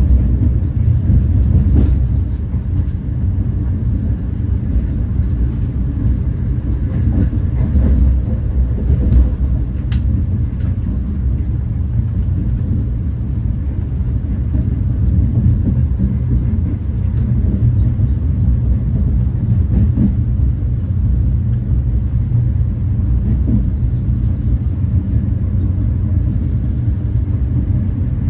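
Renfe class 130 (Talgo 250) high-speed train running at about 200 km/h, heard from inside a passenger coach: a steady low rumble of wheels on rail, with a few faint clicks.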